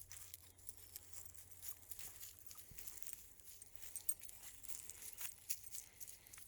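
Light footsteps on dry ground and brush: scattered faint crackles and ticks, irregular, without a steady rhythm.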